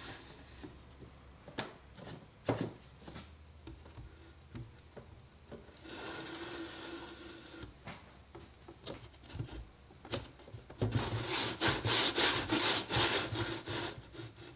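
Thin plywood divider scraping and rubbing against a wooden frame as it is worked down into a hand-chiseled slot, with scattered light wooden knocks. A fast run of scraping strokes comes in the last few seconds and is the loudest part.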